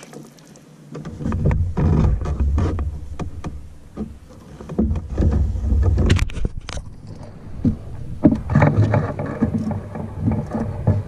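Handling noise from the camera being grabbed and turned around in the canoe: a low rumble of rubbing with irregular knocks and sharp clicks.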